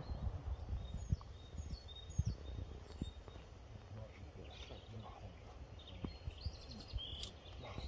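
Wind rumbling on the microphone, with small birds chirping faintly now and then.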